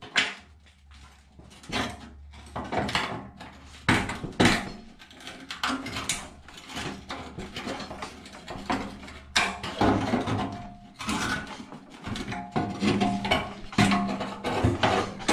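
Hand tools working rusty sheet steel: irregular clinks, knocks and scrapes as pliers grip, twist and pry rotted pieces of a spot-welded brace off an old truck fender.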